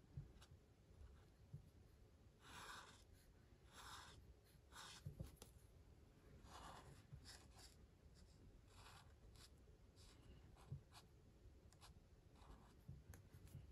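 Faint swishing of an alcohol marker's tip stroking across sketchbook paper while colouring, in short strokes at an uneven pace, with a few soft knocks.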